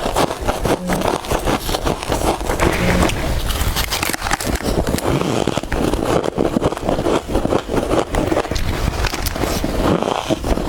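Soft freezer frost being bitten and chewed: a continuous, dense crackle of many small crunches.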